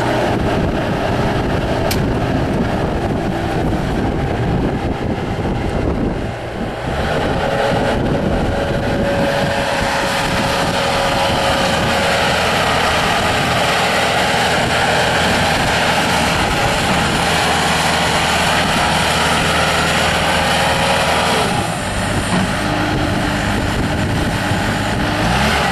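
Bobcat S300 skid steer loader's diesel engine running steadily, with a steady whine added from about eight seconds in until about twenty-one seconds, then a shorter, lower tone near the end.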